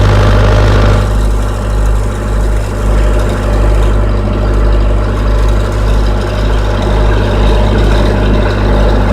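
Case 580E backhoe's diesel engine running steadily, heard from inside the cab, with a strong low drone.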